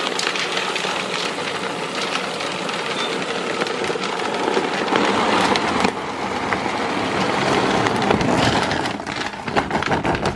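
Dry puppy kibble pouring from its bag into a plastic pet-food storage vault: a steady rattle of many small pellets hitting the plastic and each other, thinning to scattered clicks near the end.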